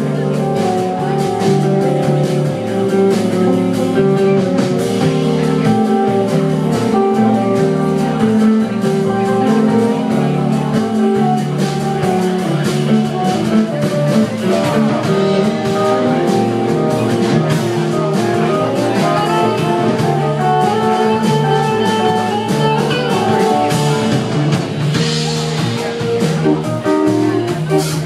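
Live rock band playing a loud, steady instrumental jam, with electric guitars and a drum kit.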